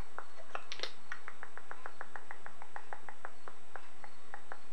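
A rapid, regular series of short clicks, speeding up to about eight a second and then slowing again, with a brief brighter sound about a second in.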